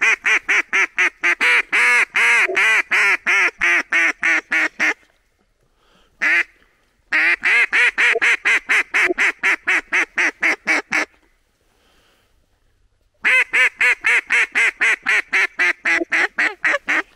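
A cut-down duck call blown in fast strings of mallard hen quacks, about four a second. There are three runs of several seconds, with a single quack between the first two, calling to mallards as they come back in.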